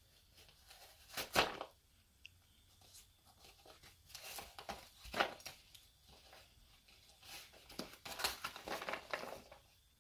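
A dog tearing at a cardboard egg carton wrapped in masking tape to get at treats inside, in three bouts of ripping and crinkling. The bouts come about a second in, around five seconds, and from about seven and a half seconds to near the end.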